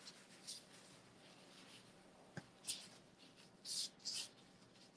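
Faint rubbing and brushing of gloved hands pressing and rolling a ring of sesame-coated ka'ak dough on a stone countertop: a few short scraping rustles, with a light tick about halfway through.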